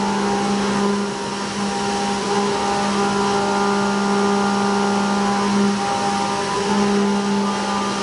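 CNC milling machine cutting a pocket with an end mill under flood coolant: a steady cutting hum with a few higher tones over the hiss of the coolant spray. The hum falters briefly twice, at about two seconds and again at about six seconds in.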